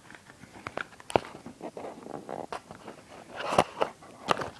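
Hands handling a spark plug and its packaging: scattered clicks, scrapes and rustling, with a louder cluster of clicks about three and a half seconds in.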